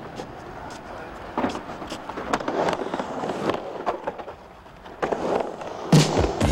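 Skateboard session on a wooden halfpipe: wheels rolling on the plywood ramp with scattered clacks and knocks of boards and trucks, and a loud knock near the end.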